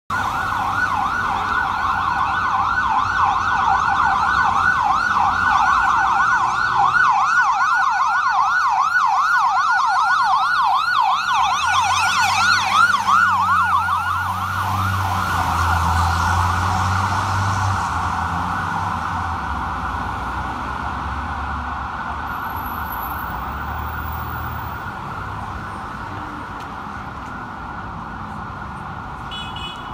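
Fire engine siren on a rapid yelp, loudest about twelve seconds in as the 2007 Spartan Gladiator/Smeal pumper passes close with its engine rumbling. After that the siren turns into a steadier, blurred tone that fades as the truck drives away.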